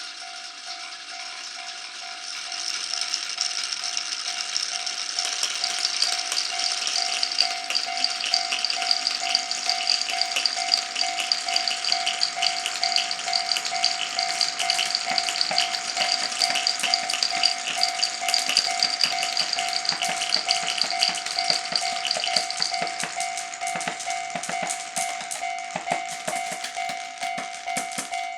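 Many glass marbles rolling and clattering through a wooden marble run: a dense rattle of quick clicks that builds about two seconds in and thins out near the end, over a steady high tone.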